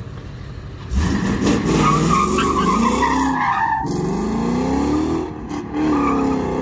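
Ford Mustang GT's V8 revving hard with its rear tyres squealing on asphalt in a burnout. The noise comes in loud about a second in, the engine pitch rises and falls several times, dips briefly near the end, then climbs again.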